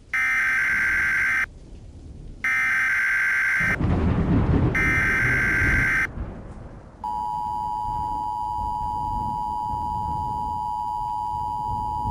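Emergency Alert System tones opening an alert: three short bursts of the digital SAME header, about a second apart, then from about seven seconds in the steady two-tone EAS attention signal. A low rumbling noise runs underneath from about four seconds in.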